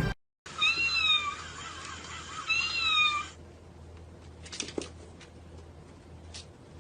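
Domestic cat meowing twice, two drawn-out meows about two seconds apart, followed by a few faint clicks.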